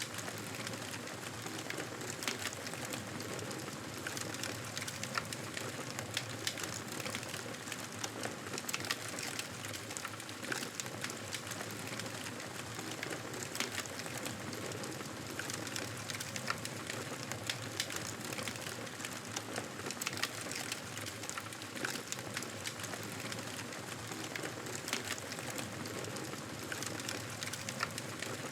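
Wood fire crackling in a fireplace: a steady hiss with frequent small sharp pops and snaps.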